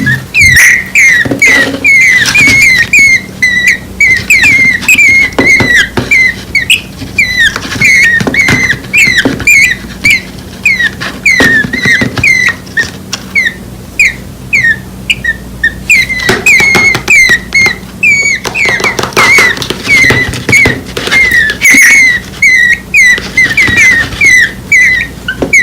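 Two nestling birds less than a week old chirping continuously: short, high, squeaky begging calls repeated a few times a second, hungry chicks calling for the parent bird.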